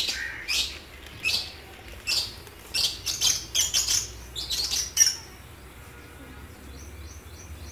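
Birds chirping: short high chirps coming several times a second for about five seconds, then fainter and sparser. A low steady hum runs underneath.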